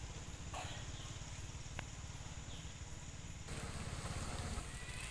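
Outdoor background noise: a steady low rumble with a few faint clicks and short high chirps, the hiss growing brighter at a cut about three and a half seconds in.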